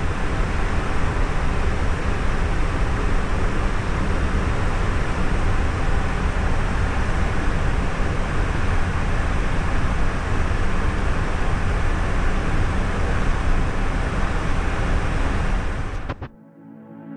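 Steady cockpit noise of an Airbus A350 in flight: an even rush of airflow and air-conditioning, heaviest in the low end. It cuts off suddenly near the end, and quiet music begins.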